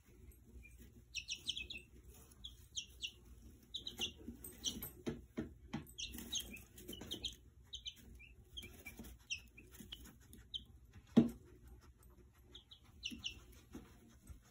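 Two-week-old chicks peeping in many short, high chirps, with a few faint clicks and, late on, one sharp knock.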